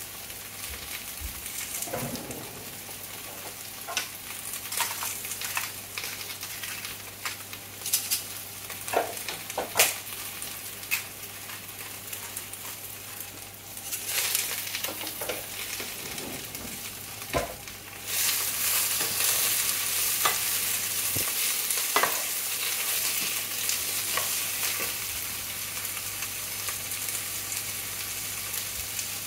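Cabbage and wiener sausages frying in a pan: a steady sizzle with scattered crackling pops. About eighteen seconds in, after liquid is poured into the pan, the sizzling suddenly grows louder and hissier, and a wooden spatula stirs through the food.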